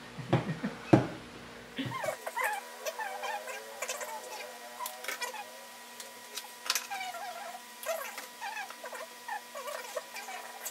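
About two seconds of ordinary talk, then fast-forwarded audio: voices and table noises sped up so they come out high-pitched and squeaky, with quick clicks from cartons being handled.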